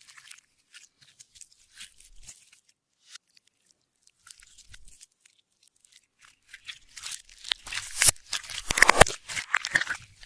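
Clear slime being worked by hand, a run of sticky clicks and crackles, sparse and soft at first, then louder and denser over the last three seconds.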